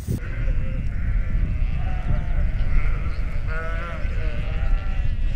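Sheep bleating in a grazing flock: several overlapping calls, the clearest about three and a half seconds in, over a steady low rumble.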